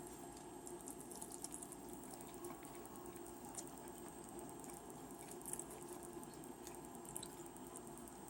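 Faint eating sounds: scattered small wet clicks and smacks from chewing chicken wings, over a steady low room hum.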